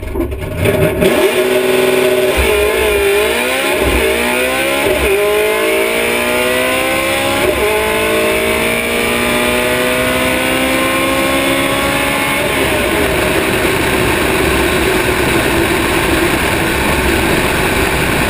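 Naturally aspirated, manual-shift Mustang drag car launching and running hard down the strip. The engine pitch climbs for about ten seconds, with brief dips at the gear changes. Then the engine note gives way to a steady rush of wind and tyre noise as the car coasts.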